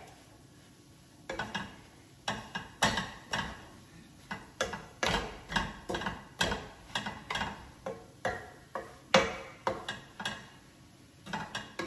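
A stirring utensil knocking and scraping against a cooking pan as a turmeric and gram-flour barfi mixture is stirred: irregular clacks about two a second, starting about a second in, with a short pause near the end.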